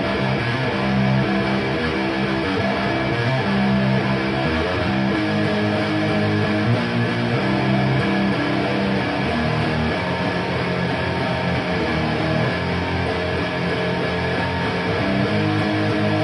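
Electric guitar (a Blackmachine with DiMarzio FRED pickups) played through a Framus Cobra 100-watt head into a Marshall MF400A cabinet with Celestion G12K-100 speakers. It plays a steady run of chords, each held for a second or so before the next.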